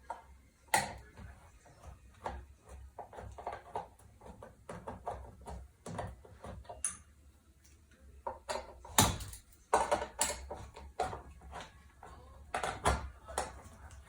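Irregular clicks, taps and knocks of a ceiling light fixture's screws and metal parts being handled as the fixture is unscrewed and taken down, with a few louder knocks in the second half.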